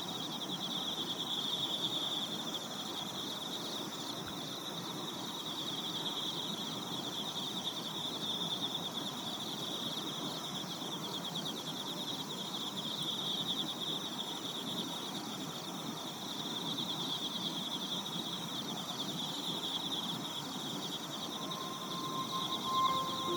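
Chorus of night insects, crickets or katydids, trilling steadily and high-pitched, over a low even hiss of the marsh. Soft music tones come in near the end.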